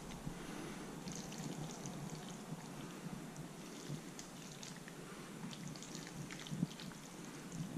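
Faint wet squishing and scattered light clicks of plastic-tipped tongs lifting sauced spaghetti from a pan and dropping it into a plastic bowl.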